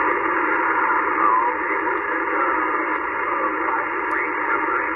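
Shortwave SSB receiver hiss from a Yaesu FT-891 transceiver tuned to the 17 m band: steady band noise squeezed into a narrow voice-width passband, with a few faint warbling whistles through it.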